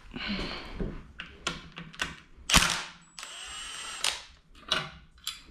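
Hand tools and metal engine parts clinking and knocking during an engine teardown: a string of sharp clicks and knocks, the loudest about two and a half seconds in, with a short scraping stretch just after it.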